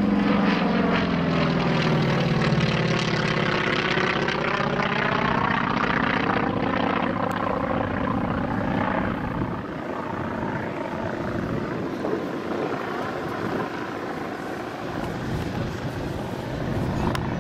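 Nine-cylinder Wright R-1820 Cyclone radial engine and propeller of a North American T-28C Trojan running at display power as it passes overhead. Its pitch drops over the first few seconds, and the sound fades to a rougher, weaker drone about halfway through as the plane flies off.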